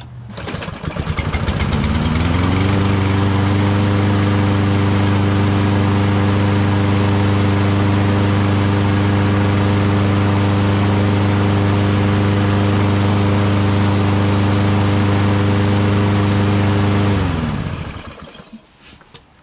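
Lawn-Boy push mower's small single-cylinder engine starting: it catches right away, speeds up over about two seconds, then runs at a steady fast speed. About seventeen seconds in it shuts off and winds down within a second.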